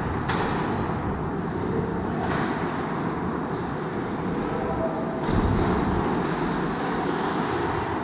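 Ice hockey rink play noise: a steady scraping rush of skates on the ice, with a few sharp clacks, a little louder from about five seconds in.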